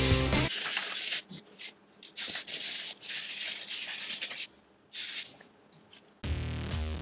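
Hand-sanding dried spackle patches on a painted wall: several spells of sandpaper strokes with short pauses between. Background music plays at the start and comes back near the end.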